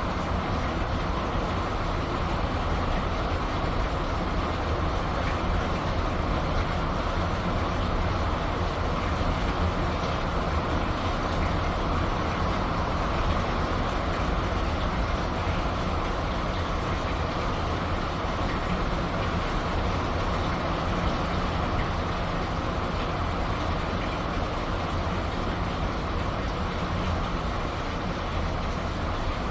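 Steady rain falling, over the low, even drone of a ship's engine.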